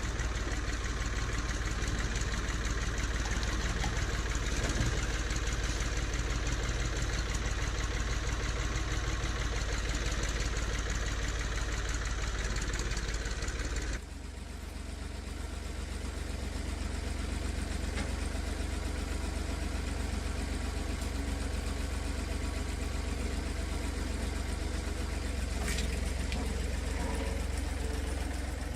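Ford 4500 tractor-backhoe's engine running steadily at idle. About halfway through the sound abruptly turns duller and a little quieter, then carries on evenly.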